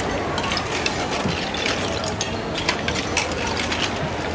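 Busy buffet-restaurant noise with frequent small clinks and clatter: a serving spoon scooping cooked snails in their shells from a steel chafing dish onto a plate.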